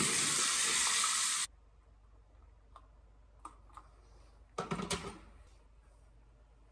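Bathroom tap running, with water splashing as it is scooped over a face; it cuts off suddenly about a second and a half in. Later there are a few faint clicks and a short clatter as a kettle and a tumbler are handled on a benchtop.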